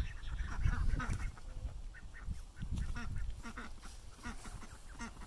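Farmyard poultry calling: many short calls repeated throughout, over a low rumble.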